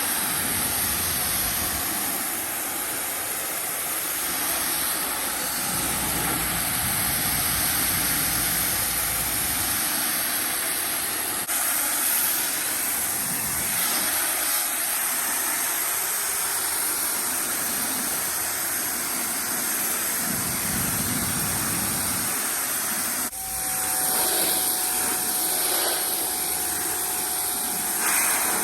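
Bauer 2300 pressure washer spraying a steady, hissing jet of water, rinsing foam off a vehicle, with a couple of abrupt changes in the spray noise where the footage cuts.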